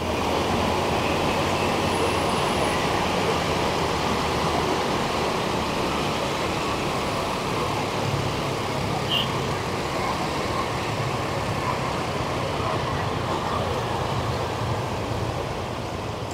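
Steady city street traffic noise: a mix of engines running with tyre noise and a low engine hum throughout.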